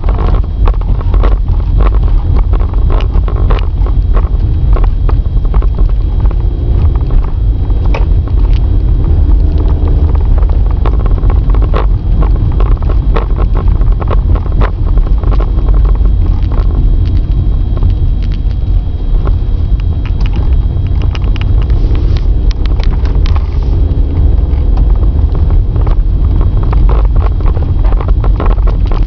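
Car being driven, heard from a camcorder mounted inside the cabin: a constant deep road and engine rumble with frequent small knocks and rattles.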